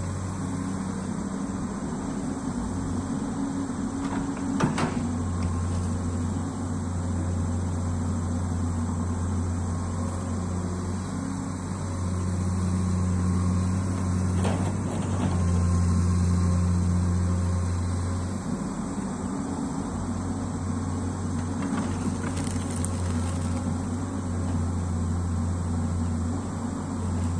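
Komatsu long-arm amphibious excavator's diesel engine running under load, its drone swelling and easing as the boom swings and the bucket digs, with a brief dip about nineteen seconds in. A single sharp knock about five seconds in.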